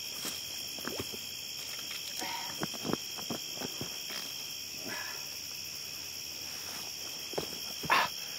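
Steady night chorus of crickets and other insects trilling, with scattered short knocks and rustles of handling at the water's edge, one louder near the end.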